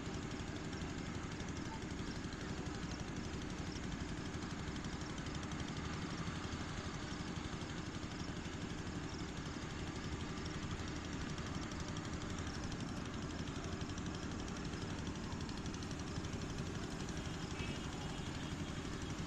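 A steady engine running evenly, a low hum under a constant rushing noise, with no change in speed.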